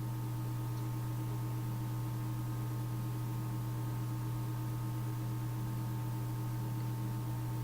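Steady low electrical hum with an even hiss and a few faint fixed tones above it.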